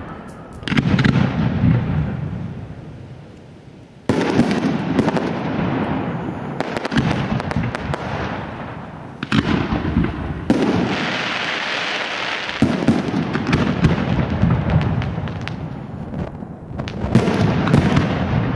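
Aerial fireworks display: shells bursting in rapid succession, with sharp bangs and rolling rumble throughout. A loud new volley starts suddenly about four seconds in, and there is a two-second stretch of hissing about ten seconds in.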